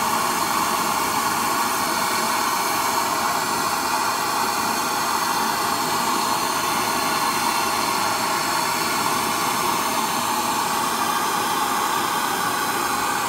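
Handheld gas blowtorch burning with a steady hiss, its flame heating a seized driveshaft to loosen it.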